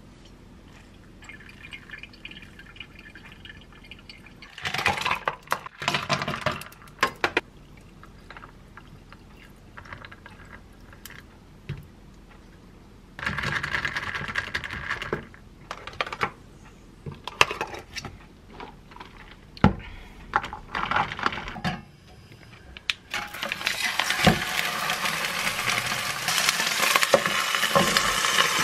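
A thin stream of hot water trickling from a gooseneck kettle into a hand-drip coffee filter, then ice cubes clattering and clinking in a plastic cup as iced coffee is poured and stirred with a straw. In the last few seconds, fish frying in a lidded frying pan starts sizzling and grows louder.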